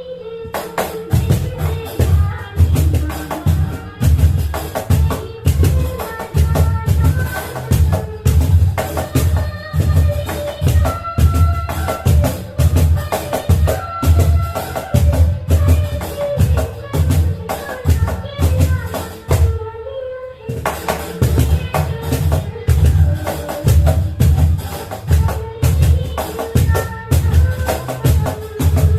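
A Clapbox CB40 snare cajon played by hand in a steady rhythm, deep bass thumps alternating with sharp slaps, with a brief break about twenty seconds in. A song with a melody plays alongside.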